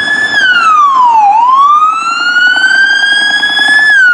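Police siren wailing: a single pitch slides down over about a second, climbs slowly back up over nearly three seconds, then begins to fall again near the end.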